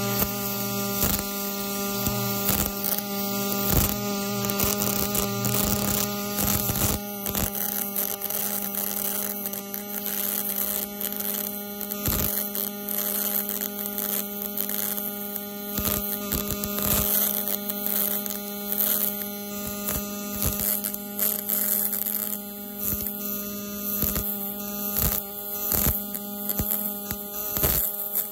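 MIG/MAG welding arc laying a weld pass on steel: a steady buzzing hum with frequent short, sharp crackles.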